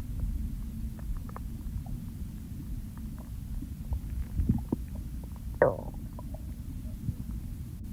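A person's stomach and intestines rumbling and gurgling: a continuous low rumble dotted with small bubbly pops and clicks, and one louder gurgle a little past halfway.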